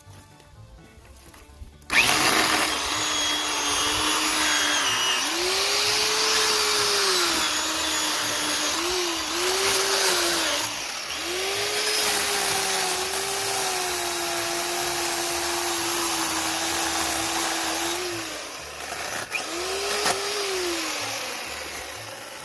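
WORX 14-inch corded electric chainsaw (WG305) starting up about two seconds in and cutting wood. The motor whine rises and sags again and again as the dull chain loads and unloads in the cut, then winds down near the end.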